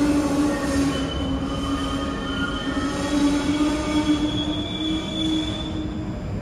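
New York City subway train running through an underground station: a low rumble of wheels on rail with several thin, wavering wheel squeals, and a steady lower tone that fades out near the end.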